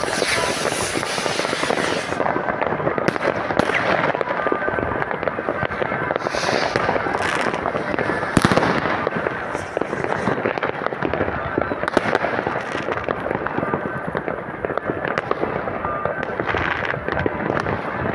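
Many fireworks and firecrackers going off at once in a dense, unbroken crackling din, with single louder bangs standing out about eight and twelve seconds in.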